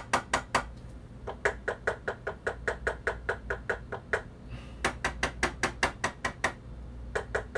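Knuckles rapping quickly on the plastic tone arm back covers of Sony PS-X555ES linear-tracking turntables, in short runs of about five knocks a second with brief pauses between runs. The hand moves between the stock deck and the one fitted with a damped MDF supplemental plinth. This is a knuckle-rap test of how much each cover resonates.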